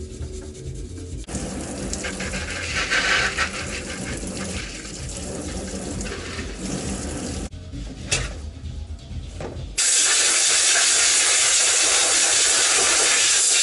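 Water from a hose running over bicycle parts in a plastic wash tub as they are rinsed, with background music underneath. About ten seconds in, a loud, steady spraying hiss from a hose nozzle starts as a chrome fender is sprayed off.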